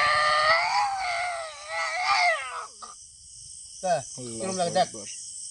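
A person's high, drawn-out, wavering cry lasting about two and a half seconds, followed near the end by a short burst of lower voice; crickets chirr steadily underneath.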